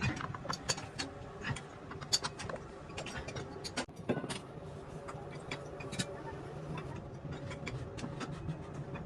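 Irregular light clicks and taps of workshop hand work, several a second, over a steady low hum.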